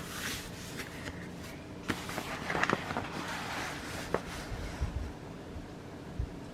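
Light handling noise of a paint-by-numbers canvas being held and shown: soft rustling with a few clicks and small taps, and a couple of low thumps near the end.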